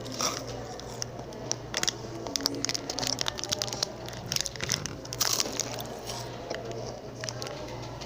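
Chocolate being eaten close to the microphone: a run of short crisp crunches, crinkles and chewing clicks over a steady low hum.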